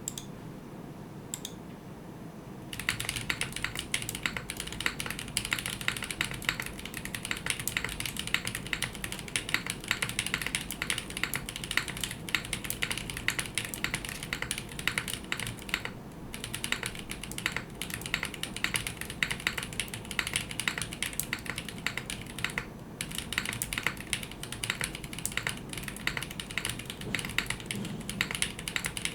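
Fast continuous typing on a Blank60 60% mechanical keyboard with lubed DesignerStudio White Jade tactile switches, a POM plate and GMK Shoko keycaps: dense keystroke clacks that start about three seconds in, with two brief pauses.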